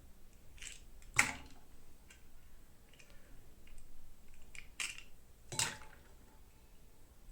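Toy packaging being handled and opened by hand: scattered sharp clicks and short rustles, with the two loudest snaps about a second in and a little past halfway.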